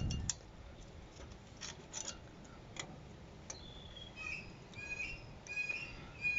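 Faint, scattered light clicks and taps of drum-brake shoe hardware being handled and fitted. From about halfway on, a run of short high chirps repeats.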